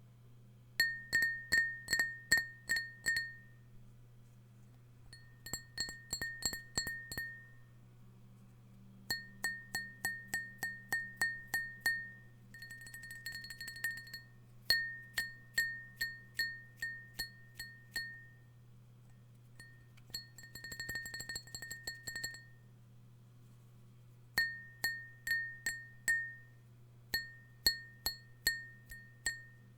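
A glass tapped again and again, each tap ringing briefly at one clear high pitch. The taps come in short runs of several strikes with pauses between, and twice they speed up into a rapid rattling roll.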